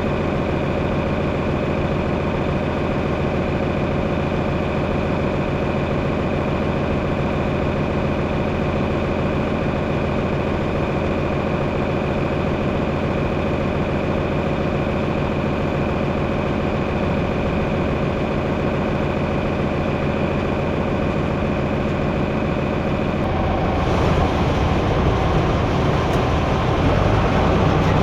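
A heavy farm machine's engine running steadily. About three-quarters of the way through, the sound changes abruptly to a louder, rougher noise.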